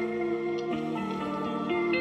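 iPhone ringtone playing: a soft, melodic tune of sustained chiming notes, with a new note starting about every half second.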